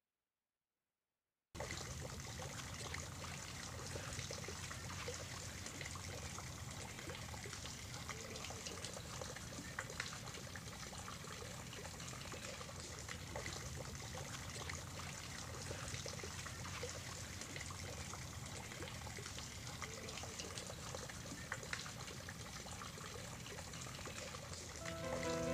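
Steady rushing noise, like trickling or running water, that starts abruptly about a second and a half in after dead silence. Music comes in right at the end.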